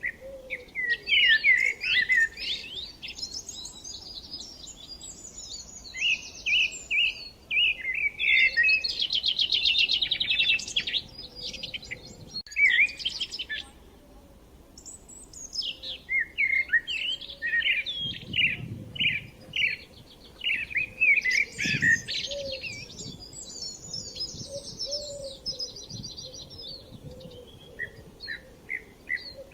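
Several songbirds singing over one another: overlapping chirps, short repeated phrases and fast trills, with hardly a pause.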